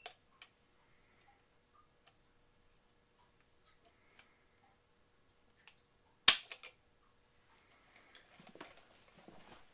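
A single sharp metallic click about six seconds in: the hammer of an unloaded Browning Hi Power Mark III pistol falling as the trigger breaks under the pull of a trigger pull scale. A few faint handling ticks follow near the end.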